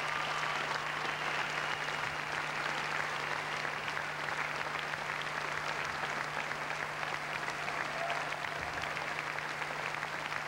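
Large audience applauding steadily, with a low steady hum underneath.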